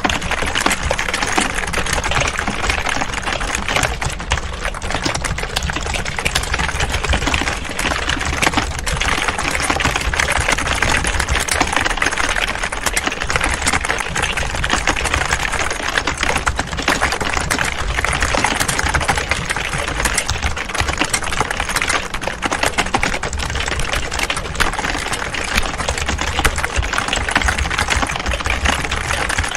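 Several people typing at once on computer keyboards: a dense, continuous clatter of overlapping key clicks.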